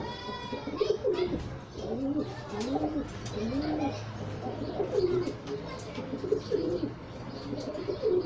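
Bird calls: a series of short, low calls, each rising and falling in pitch, repeated every second or so, with a brief higher-pitched call at the very start.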